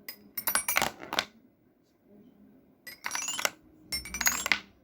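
Three bursts of small hard objects clinking and rattling together, with a bright metallic ring.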